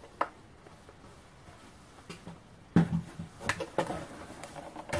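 Quiet room tone, then a little past halfway a sharp knock on the counter followed by a few lighter clicks and rustles as kitchen things are handled.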